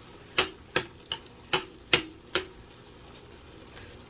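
A kitchen utensil clicking against a pan: six sharp, evenly spaced clicks over about two and a half seconds, then one faint click near the end.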